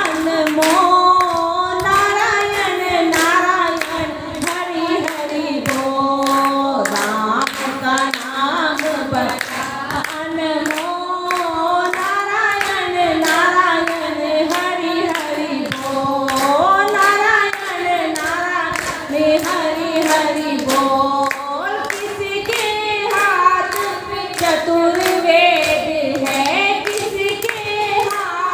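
Group of women singing a Hindi devotional bhajan in chorus, kept in time by steady rhythmic hand clapping.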